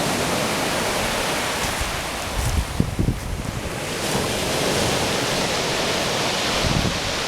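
Stormy sea surf: waves breaking and washing in a steady rush of noise, with wind buffeting the microphone in low rumbles about three seconds in.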